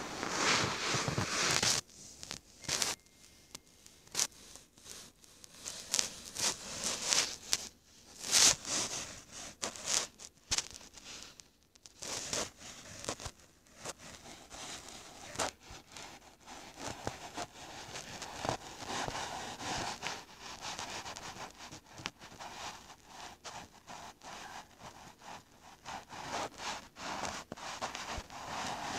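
Irregular rubbing and scraping of a fingertip moving on a phone's touchscreen, picked up by the phone's own microphone, in many short strokes and taps.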